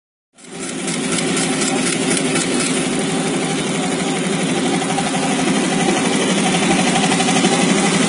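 ZSK industrial embroidery machine stitching at speed: a dense, steady, rapid needle clatter that starts abruptly about a third of a second in.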